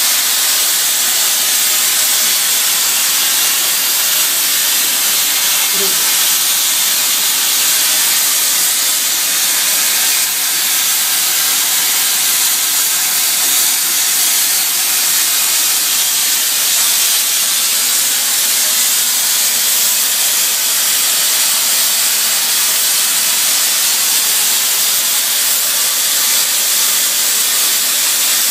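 Plasma cutting torch on a CNC pipe-cutting machine, cutting through a large steel pipe wall with a steady, unbroken hiss.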